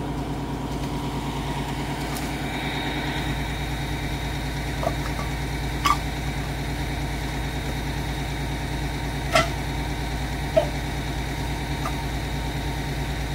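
Fire engine idling steadily, a low even hum, with a few short sharp knocks or clinks over it in the second half.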